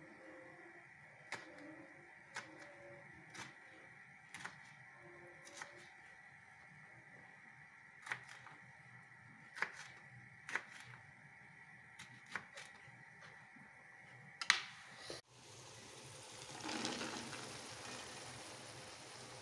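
Knife blade knocking on a wooden chopping board as green chillies are sliced: about a dozen single, faint knocks at uneven intervals, roughly one a second. After about fifteen seconds these give way to a wooden spoon stirring food in a metal pot, a soft scraping rustle.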